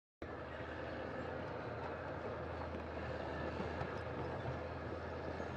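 Heavy earthmoving machine's engine running steadily with a constant low hum, cutting in abruptly just after the start.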